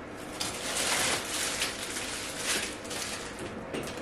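Thin plastic produce bags rustling and crinkling as they are handled, loudest about a second in, with shorter rustles later.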